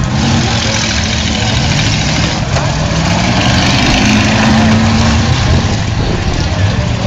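Eight-cylinder demolition derby car engines running together, one revving up slowly over several seconds.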